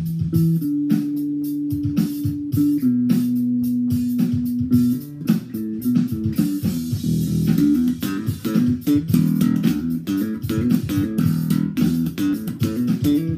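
Warwick electric bass played solo, noodling on a groove: a few long held notes over the first five seconds or so, then a quick run of short plucked notes.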